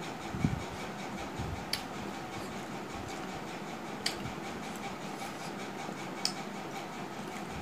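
Eating by hand from steel plates: fingers working rice on the metal plates and mouth sounds, giving a few sharp clicks and soft low knocks over a steady background hiss.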